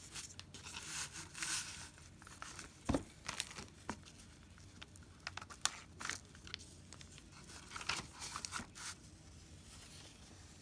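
Paper crinkling and rustling with scattered sharp clicks as the pom-pom craft board is handled and shifted on sheets of paper flyers.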